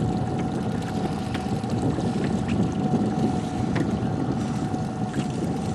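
A fishing boat's motor running steadily at trolling speed, with a faint steady whine and wind noise on the microphone.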